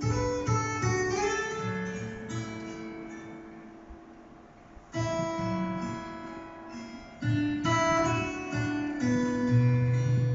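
Acoustic guitar track played back from a CD: chords plucked and strummed and left to ring out, with fresh chords about five and seven seconds in and a low bass note near the end.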